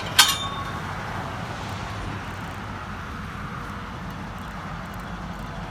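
A sharp metallic clank about a quarter second in, then a steady low rumble of a vehicle engine running.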